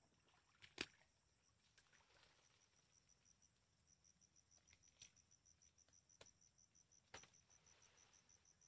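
Faint, high-pitched chirping of an insect such as a cricket, pulsing about four times a second, starting about two and a half seconds in. A few sharp clicks stand out over it.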